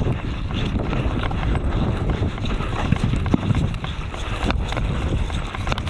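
Footsteps of a person running on the ground, a quick irregular run of thuds.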